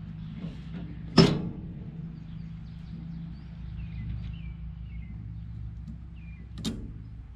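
Two sharp metal clanks of hand tools against the knotter of an Oliver 60 twine baler, a loud one with a short ring about a second in and a smaller one near the end. A steady low hum runs underneath, with faint bird chirps in the middle.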